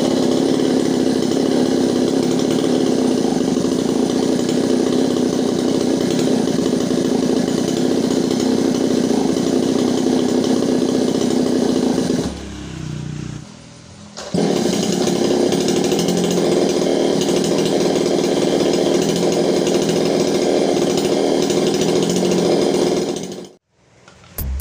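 Two-stroke chainsaw engine running at high revs. About halfway through it drops back to a lower idle for about two seconds, then abruptly revs up again, and it cuts off suddenly near the end.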